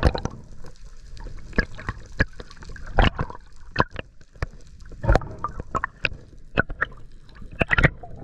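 Underwater sound of a freediver swimming along a reef: water moving past the camera housing, with irregular sharp clicks and pops.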